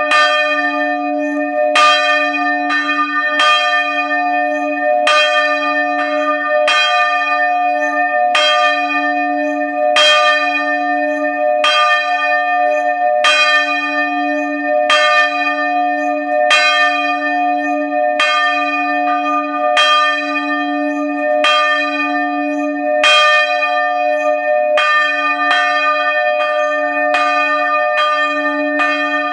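Church bells ringing in the tower's bell chamber, heard close up. The clappers strike at a steady pace of a little more than once a second, and each stroke rings on into the next, so the bells hum continuously beneath the strokes.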